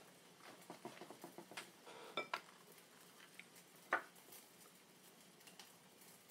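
Quiet kitchen handling: soft rustling of steamed cabbage leaves being peeled and handled, with a few small clinks of a knife against a ceramic plate. The sharpest, a short ringing clink, comes about two seconds in, and another tick comes near four seconds.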